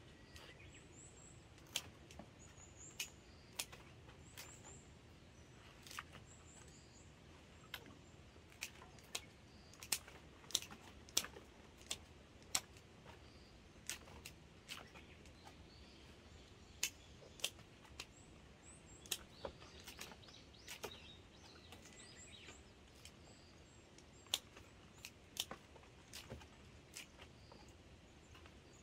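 Pruning shears snipping hydrangea stems for cuttings: sharp clicks at irregular intervals. Birds chirp faintly in the background.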